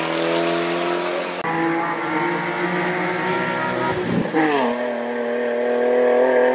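Race cars' engines held at high revs under full throttle as they climb. About two-thirds through, a BMW E36 coupe rushes past close by, its engine note dropping sharply in pitch as it goes by; then an engine holds a high, steady note.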